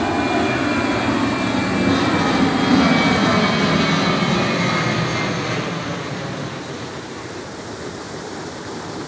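Twin-engine jet airliner climbing out after takeoff: the jet engines' rushing noise with a faint whine swells to its loudest about three seconds in, then fades as the plane flies away.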